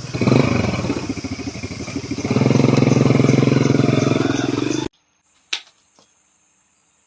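Small petrol engine running with a fast, even firing beat, revving up twice, then cut off abruptly.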